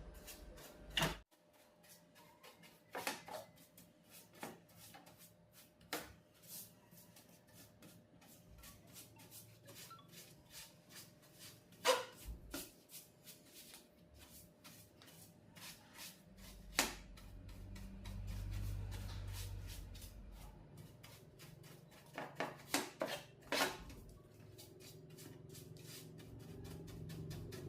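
Scattered clicks and knocks of tools and parts being handled during a TV repair, a few coming in a quick cluster near the end, with a low rumble in the middle.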